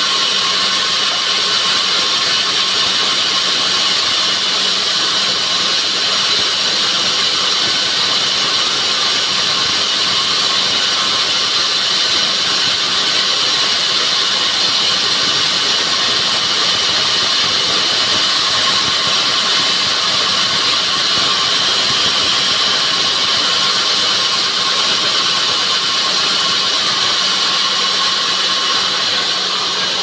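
Sawmill band saw running steadily: a loud, even machine noise with a constant hum and hiss that does not change.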